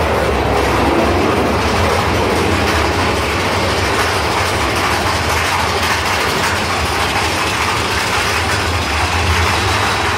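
Big Thunder Mountain Railroad mine-train roller coaster running along its track, a loud, steady rolling noise of the cars' wheels and rattling cars, heaviest in the low range.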